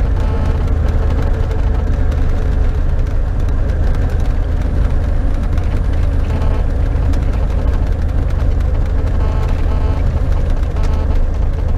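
Piper PA-28's piston engine and propeller heard from inside the cockpit, a steady low drone while the light aircraft rolls along the runway.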